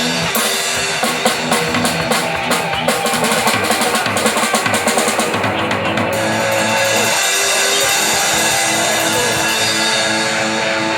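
Live rock band playing, electric guitar and drum kit. A quick run of drum hits comes in the first half, then guitar chords ring out held with lighter drumming.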